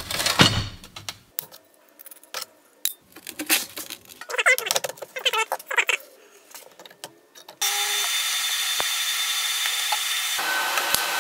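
Pieces of quarter-inch steel flat stock clinking and clanking as they are set against a magnetic square on a steel welding table. About seven and a half seconds in, a TIG welding arc strikes and hisses steadily at an even level, tack-welding the pieces together.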